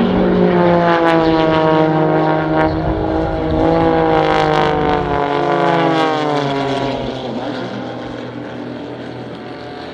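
Pitts Special aerobatic biplanes flying past in formation, their propeller engines running loud together. The engine pitch slides down from about halfway through, and the sound fades somewhat near the end as the planes move away.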